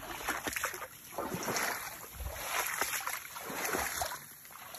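Footsteps wading through shallow swamp water, the water sloshing and swishing around the legs with each stride, about once a second.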